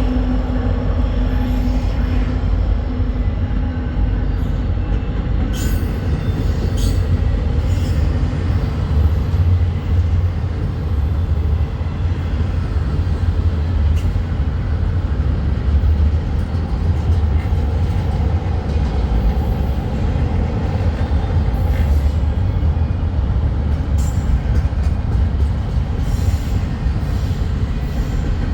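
CPKC intermodal freight train rolling past behind its rebuilt diesel locomotives: a steady heavy rumble, with an engine hum that fades in the first few seconds and scattered sharp clicks from the wheels on the rails.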